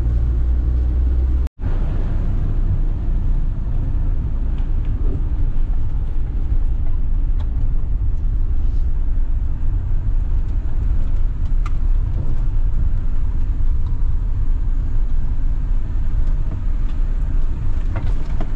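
Renault Master camper van driving on a rough, potholed road: a steady low rumble of engine and tyres with a few faint ticks and rattles. The sound cuts out for an instant about a second and a half in.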